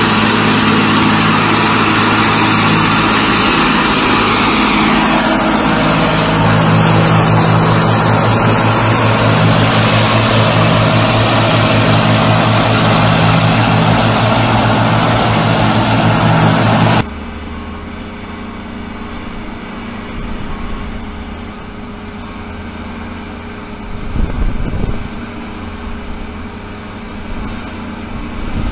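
Large farm tractor diesel engines running hard under load, pulling a mired tractor out of deep mud. It cuts off abruptly about two-thirds of the way through, leaving a much quieter engine running steadily.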